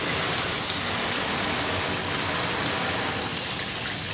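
Zinfandel grape juice dripping and running steadily out of a wine press during the crush.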